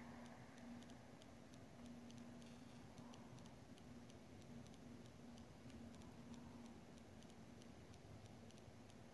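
Near silence: faint hall room tone with a steady low hum and a run of faint, irregular clicks, a few a second.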